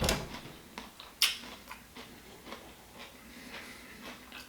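Quiet eating sounds: a string of small, irregular wet clicks from chewing, with one sharper click about a second in.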